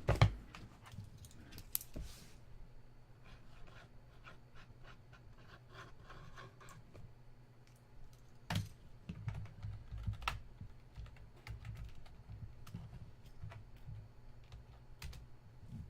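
Scattered light clicks and taps, like typing on a keyboard or handling small hard objects, with a single louder knock just after the start.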